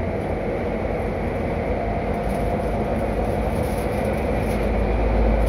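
Running noise of a Meitetsu 200 series electric commuter train heard from inside the passenger car: a steady rumble of wheels on rail and running gear, growing louder and deeper near the end.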